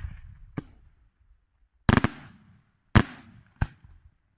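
Aerial firework shells bursting: four sharp bangs, a smaller one early, the two loudest about two and three seconds in, and a smaller one just after, each trailing off in a short echo.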